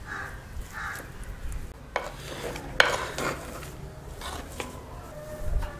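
Metal potato masher pressing boiled potatoes in a clay bowl: soft squishing and scraping, with a couple of sharp clicks of the masher against the bowl about two and three seconds in.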